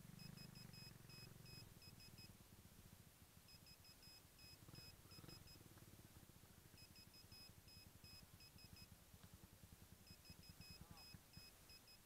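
Faint runs of short, high-pitched electronic beeps from the model plane's electronics. Each run of about seven quick beeps repeats every three and a half seconds or so, over a low handling rumble as the plane is carried.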